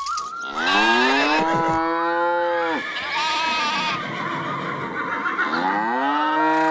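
Cow mooing twice, long calls that rise, hold and fall in pitch; the second moo begins near the end.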